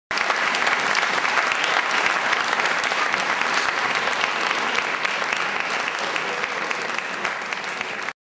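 Audience applauding, a dense steady clapping that cuts in suddenly and stops suddenly near the end.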